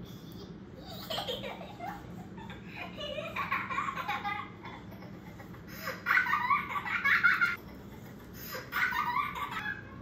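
Recorded laughter played back as a sound effect: four high-pitched giggling bouts, the third the loudest.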